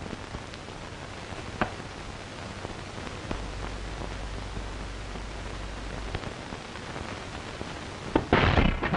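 Steady hiss and crackle of an old film soundtrack, with a few faint clicks and a low hum partway through. Near the end comes a loud burst of noise.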